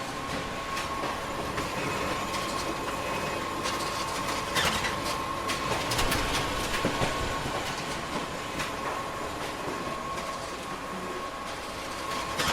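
Photocopier running in booklet-making mode: a steady mechanical whir with a constant hum and irregular clicks and clatter of the paper handling, busiest in the middle.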